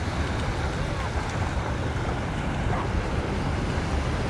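Steady wind buffeting the microphone, mixed with the wash of small waves breaking on the shore.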